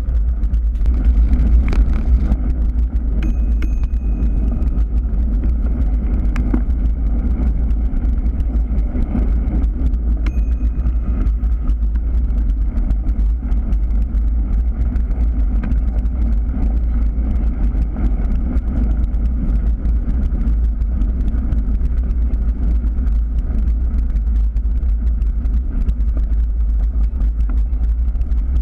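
Steady low wind rumble on a bicycle-mounted camera's microphone, mixed with the noise of tyres rolling over a gravel path. Two brief thin high tones sound, about three seconds in and again about ten seconds in.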